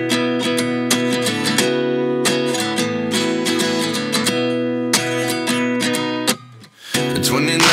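Background music: acoustic guitar strumming chords, breaking off briefly about six and a half seconds in before the song picks up again.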